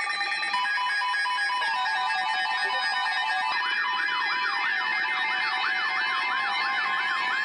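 Layered electronic emergency alert tones: several steady tones and rapid beeps sounding together, joined about three and a half seconds in by a fast warbling siren tone of about three to four sweeps a second.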